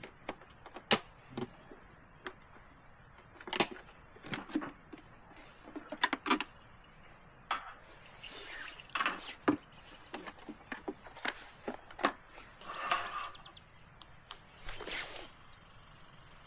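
Irregular clicks, knocks and rustling of objects being handled, with short high bird chirps now and then.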